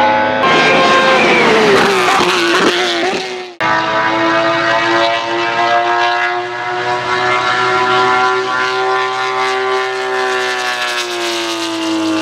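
A racing engine's revs falling with crackles as it comes off the throttle. After a sudden cut about three and a half seconds in, a BMW E30 325i Group A's M20 straight-six runs at high revs in a long steady pull, its pitch rising slowly and easing off near the end.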